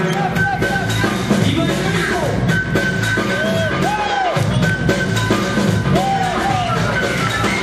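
Loud dance music played for breakdancing, with a steady drum beat and a repeated melodic figure of short rising-and-falling glides.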